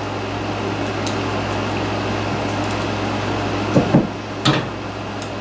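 Air conditioner running with a steady low hum and hiss. A few brief, louder sounds stand out just under four seconds in and again about half a second later.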